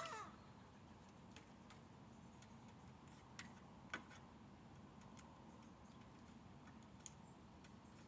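A rook gives one short call right at the start, then only faint, scattered ticks, about seven of them over several seconds.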